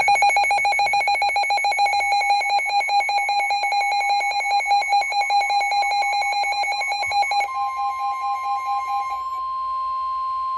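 Weather radio warning alert: a rapidly pulsing electronic alarm beep for about seven seconds, then a steady single-pitch alarm tone. It is the alert that comes before a severe thunderstorm warning broadcast.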